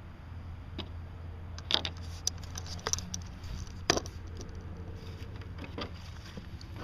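A handful of sharp little clicks and taps, spaced irregularly, from small hard parts being handled: the pad eye, the rivets and the sealant tube. A steady low hum runs underneath.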